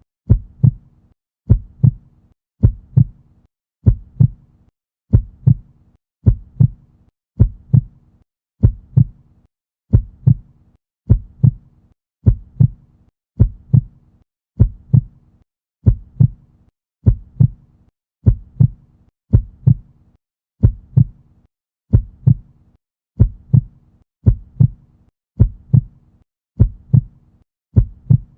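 Heartbeat sound effect: steady, even lub-dub thumps, a little faster than one beat a second.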